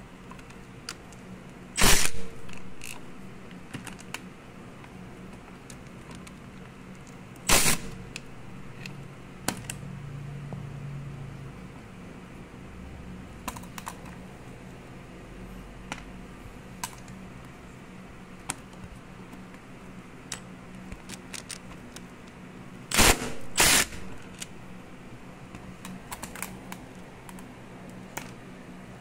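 Metal hand tools and a loose bolt clinking and clattering on a concrete floor during engine bolt removal: loud clanks about two seconds in, about eight seconds in, and twice in quick succession about 23 seconds in, with scattered small metallic ticks between.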